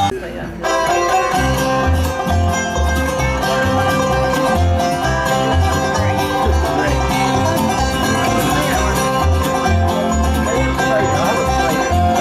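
Live bluegrass band playing an instrumental break: banjo and acoustic guitar over a steady upright bass line, with a lap slide guitar. The sound dips for about half a second right at the start.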